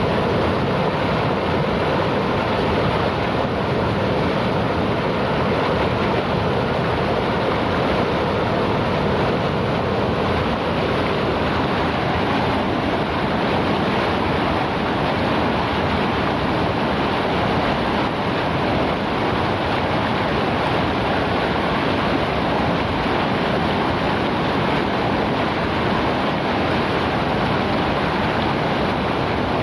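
Flowing river water: a steady, even rush with no breaks.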